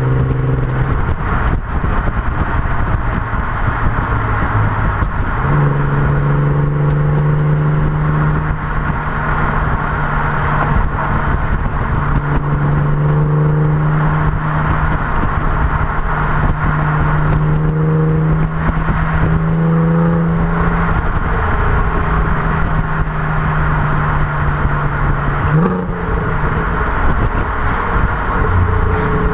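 Audi TT 3.2 V6 engine and exhaust pulling while driving, with steady road and wind noise. The engine note steps up about five seconds in and then holds at fairly constant cruising revs.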